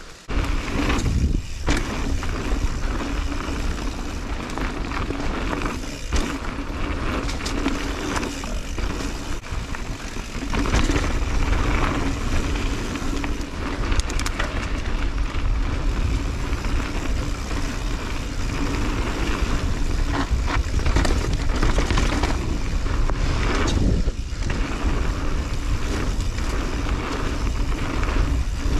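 2021 Santa Cruz 5010 mountain bike ridden fast over a dirt trail: wind rushing over the camera's microphone, tyres on the dirt and the bike clattering over bumps, with short knocks and rattles throughout.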